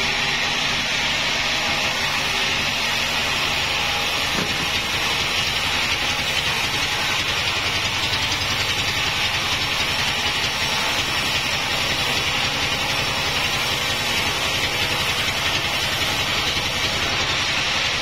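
Sawmill band saw ripping lengthwise through a wadang log: a steady, unbroken sawing noise over the low hum of the machine.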